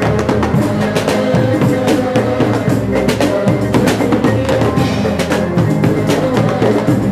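Music with a drum kit and hand percussion, the bass drum and snare beating steadily under sustained pitched notes.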